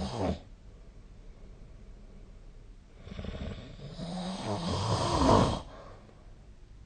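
A sleeping person snoring. The end of one snore is heard at the very start, then after a pause of about two and a half seconds comes a longer snore of about two and a half seconds that swells to its loudest near its end and stops.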